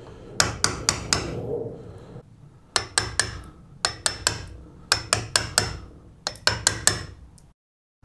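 Hammer tapping a wood chisel: light, sharp strikes in quick runs of four or five, chopping out a butt-hinge recess in the edge of a door. It cuts off suddenly near the end.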